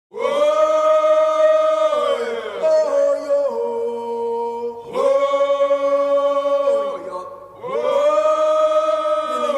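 Voices singing long held notes a cappella, in several phrases of two to three seconds each, with the pitch sliding at the end of each phrase.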